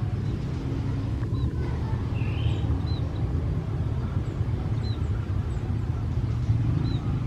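CC 206 diesel-electric locomotive running with a steady low rumble as it comes closer. Short high chirps sound about every two seconds.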